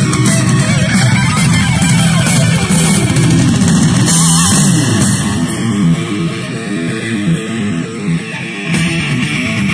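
Guitar-led music played back through a homemade wooden speaker box driven by a TDA2030 mono amplifier from an MP3/Bluetooth player module.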